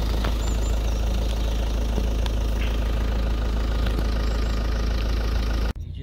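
Car engine running steadily, a low even rumble heard from inside the car. It cuts off suddenly near the end.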